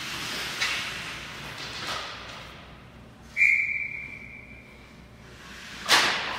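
Ice hockey referee's whistle blown once: a single high, steady blast about three seconds in that fades over a second or so. A few faint knocks come earlier, and a loud sharp bang near the end echoes through the rink.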